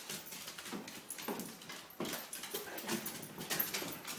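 A dog whining and whimpering in a string of short, rising-and-falling whines, about half a dozen in a few seconds.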